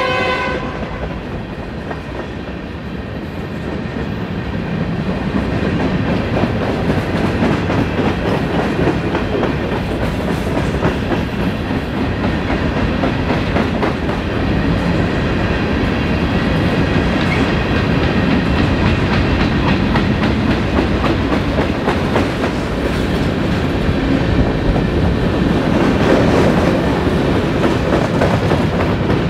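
A train horn sounds as a chord and cuts off just after the start. It is followed by the steady rumble of a passing train, its wheels clicking over the rail joints.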